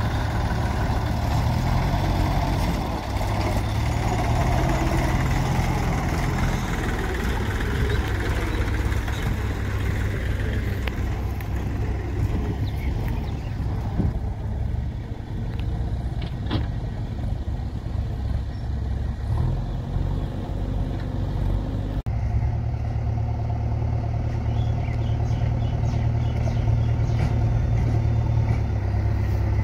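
Mahindra tractor's diesel engine running steadily as it pulls a loaded trolley away. After a sudden cut about two-thirds of the way through, a JCB 3DX backhoe loader's diesel engine is heard running as the machine drives along.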